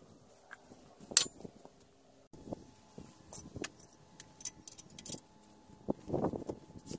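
Scattered light metallic clinks and knocks as steel parts and tools are handled, with one sharp clink about a second in and denser, louder knocking near the end.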